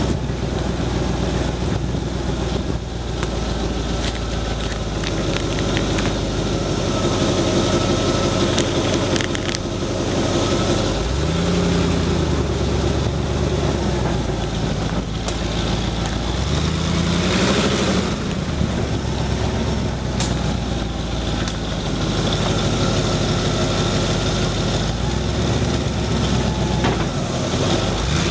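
4x4's engine running at low speed on a rutted dirt track, the revs rising and falling twice, about eleven and seventeen seconds in, with a few light knocks along the way.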